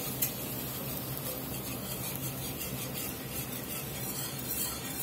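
Wire whisk stirring milk gravy in a cast-iron skillet, its wires rasping steadily against the pan bottom as the roux and milk are worked together and thicken.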